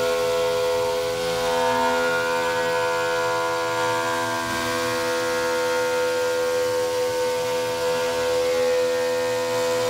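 Rottler P69AHD 5-axis CNC porting machine's high-speed spindle milling a cylinder head under flood coolant: a steady whine made of several tones at once over a hiss of coolant spray and cutting, wavering slightly in pitch as the cutter moves.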